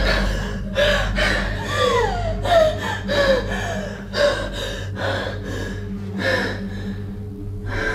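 A young woman sobbing and gasping for breath in short, broken cries, some sliding up and down in pitch like wails, over a steady low hum.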